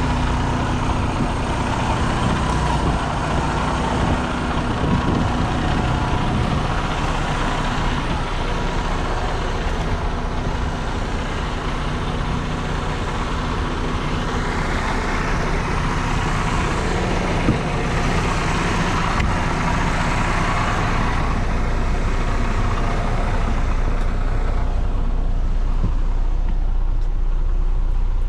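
Semi truck's Detroit diesel engine idling steadily, with a hiss that swells for several seconds midway.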